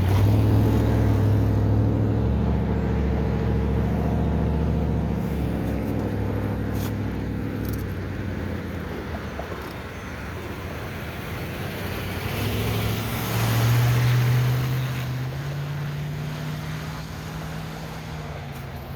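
Motor vehicle engines: a steady engine drone that fades away over the first ten seconds, then another vehicle rising in pitch and passing around the middle and fading again.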